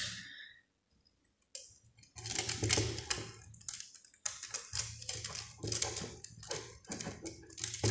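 Fingers working a bare copper wire around the brass terminal screws of plastic switches: irregular small clicks and scraping, starting about two seconds in.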